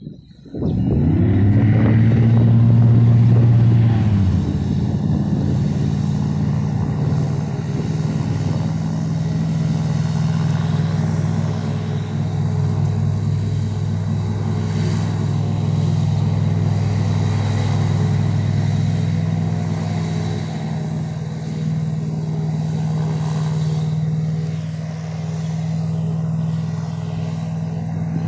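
Airboat engine and rear propeller revving up sharply, holding high for a few seconds, then running steadily at a slightly lower pitch as the boat moves across the water.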